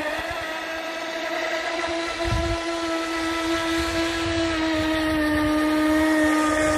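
Feilun FT011 RC boat's brushless motor whining at a high, steady pitch as the boat runs across the water. The pitch steps down slightly at the start, and the whine gets louder toward the end.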